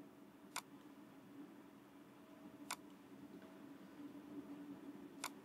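Three sharp single clicks of a computer mouse, a couple of seconds apart, over a faint steady hum.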